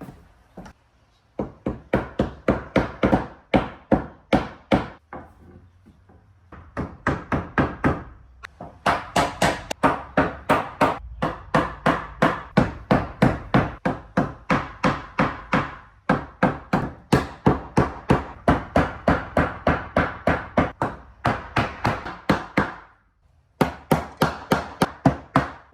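Hammer knocking protruding nails down into wooden deck boards: long runs of quick, sharp blows, about three or four a second, with a short pause now and then.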